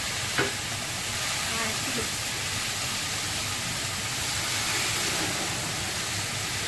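Cod frying in oil in a pan, a steady sizzling hiss, with a single sharp knock about half a second in.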